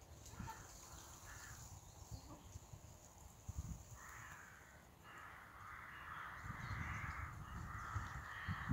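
Crows cawing, a run of harsh calls from about four seconds in, with scattered low thumps, one louder near the end.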